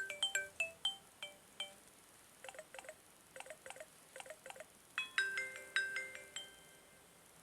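Samsung Galaxy J1 (2016) phone ringtones playing: short melodic phrases of struck, chime- and mallet-like notes, with brief pauses between the phrases, stopping about six and a half seconds in.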